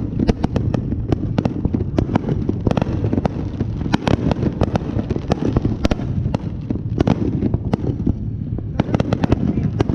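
Fireworks going off: many sharp cracks and bangs in quick, irregular succession over a continuous low rumble.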